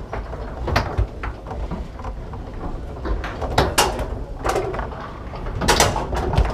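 Foosball in play: the hard ball knocking off the plastic men and table walls and the rods clacking, heard as a string of sharp, irregular knocks, the loudest cluster near the end.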